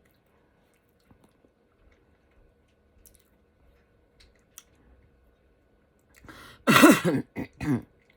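A few faint clicks, then about two-thirds of the way in a loud burp that wavers in pitch, followed quickly by two shorter burps.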